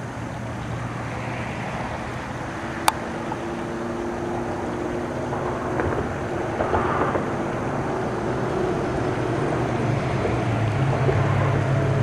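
An engine running with a steady low hum, growing gradually louder; a single sharp click about three seconds in.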